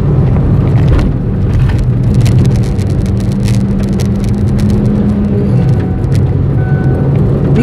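Chevrolet Beat's engine pulling hard under throttle, heard from inside the cabin, with the tyres running on a wet track; its steady note drops away about six seconds in. Scattered clicks sound over the drone.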